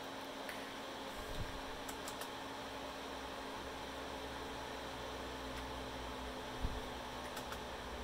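Steady hum and fan noise from a running Dell T7500 workstation, with a few light computer keyboard clicks as keys are pressed to pick a boot device, and a soft low thump late on.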